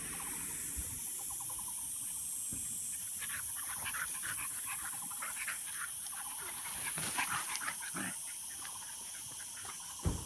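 Puppies giving a quick string of short cries for several seconds in the middle, over a steady high hiss.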